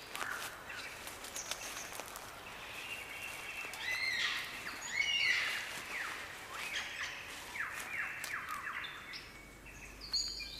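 Forest birdsong: a mix of varied chirps and whistled calls over a faint background hiss, with a quick run of falling notes partway through.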